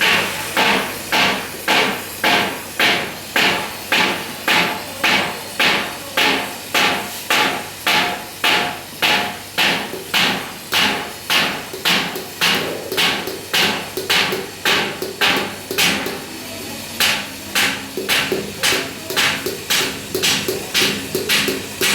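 Metal strips being hammered, with steady ringing blows about two a second and a short break about 16 seconds in.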